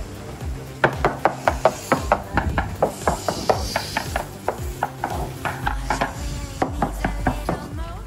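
Rapid, sharp tapping of a surveyor's hammer on a catamaran's rudder and hull, about four strikes a second, sounding the laminate for delamination. Background music plays underneath.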